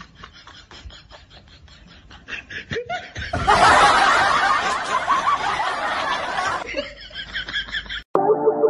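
A person laughing: quiet at first, then loud, high laughter from about three seconds in that lasts about three seconds and dies down. Near the end it cuts off suddenly.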